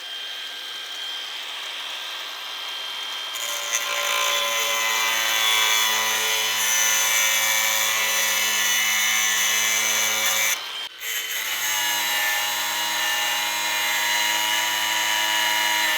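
Angle grinder with a cutoff wheel cutting quarter-inch AR400 abrasion-resistant steel, cutting slowly because the hard plate resists the wheel. It makes a steady motor whine with a gritty grinding hiss. It stops for a moment past the middle and then spins back up.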